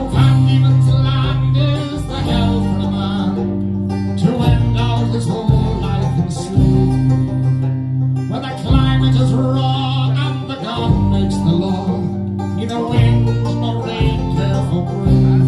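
Live Irish folk band playing an instrumental passage between sung verses: whistle and fiddle on the melody over strummed acoustic guitar and bass guitar, with bass notes changing every second or two.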